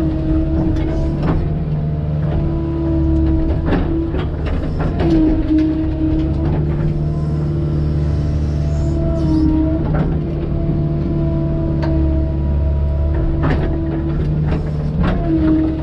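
Excavator working soil: a steady diesel engine and hydraulic whine that swells and dips every few seconds as the controls are worked under load. Irregular clanks and knocks from the bucket and tracks run through it.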